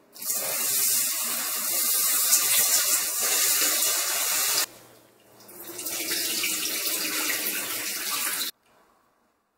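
Water from a kitchen tap running into a stainless steel bowl of basmati rice as the rice is rinsed by hand. It runs in two spells with a short break about halfway, then cuts off suddenly near the end.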